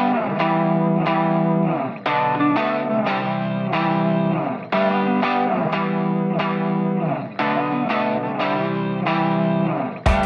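Intro music led by a guitar played through effects, notes plucked in a steady rhythm.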